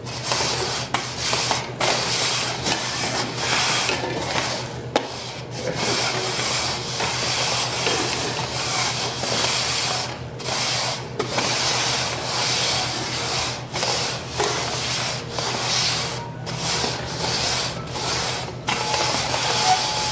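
Red plastic cups being slid and shuffled quickly across a wooden tabletop: a continuous scraping rub with brief pauses. A steady high tone joins near the end.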